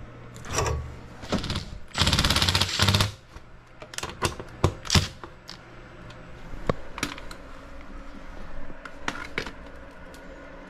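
Cordless impact driver running on sheet-metal screws: two short bursts, then about two seconds in a loud run of rapid hammering impacts lasting about a second. Scattered sharp clicks and knocks follow.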